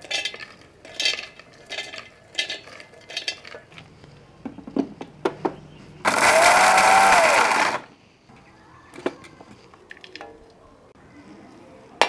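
Roasted almonds, cashews and cardamom are tipped into a steel mixer-grinder jar and clatter in several small falls. About six seconds in, the electric mixer grinder runs once for under two seconds, its whine rising and then falling as it grinds them to powder, followed by a few clicks of the jar.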